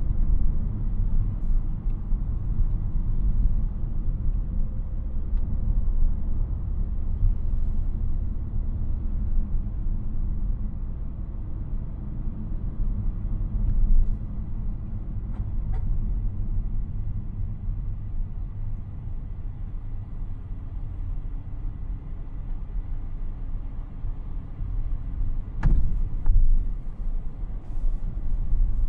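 Steady low vehicle rumble heard from inside a car's cabin, with a few faint clicks.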